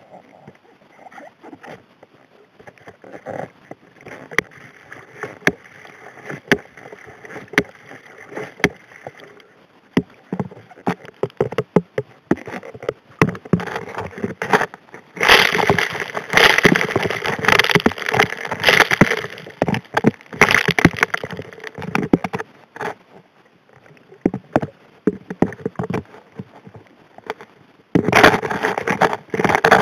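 Recorded underwater at the steel nozzle of a Golden Sniffer Model 625 HD P hand suction dredge: gravel and small rocks clatter and knock against the nozzle as they are sucked in, over a rush of water. The clicks are sparse at first and turn into a dense, loud clatter from about halfway, ease off, and come back hard near the end.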